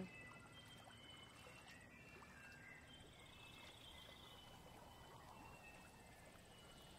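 Near silence: faint outdoor ambience with a few soft, distant bird calls and a brief faint trill.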